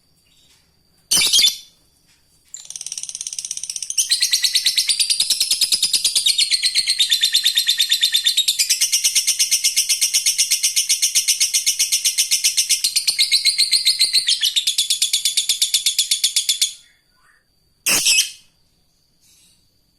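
Lovebird singing 'ngekek': one short sharp call, then a long rapid chattering trill of evenly spaced high notes lasting about fourteen seconds, then another short call near the end.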